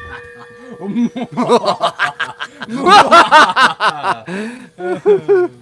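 Men laughing hard in quick repeated bursts, loudest around the middle. In the first couple of seconds a struck hand bell's ring dies away under the laughter.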